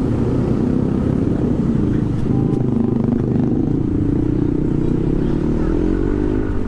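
Engine of a 2020 Yamaha NMAX scooter running steadily while riding in traffic, with wind noise on the microphone; its note rises a little about five seconds in.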